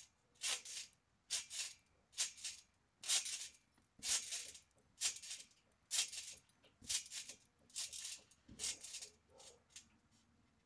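Trampoline bouncing: the mat and its springs give a rattling swish with each bounce, about once a second, dying away near the end as the bouncing stops.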